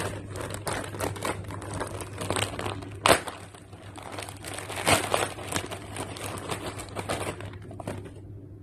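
Plastic packaging bag crinkling and rustling as it is handled and a phone box is pulled out of it, with two louder sharp crackles about three and five seconds in.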